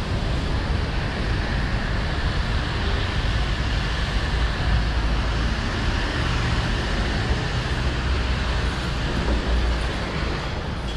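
Steady rushing wind on the camera microphone over a low traffic rumble. It eases off about ten and a half seconds in, as the outdoor noise gives way to a quieter indoor space.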